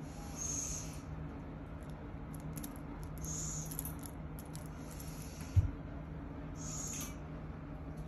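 Barn owls giving their hissing snore call, four short rasping hisses about half a second each, spaced a second and a half to three seconds apart. A single dull thump about five and a half seconds in is the loudest sound.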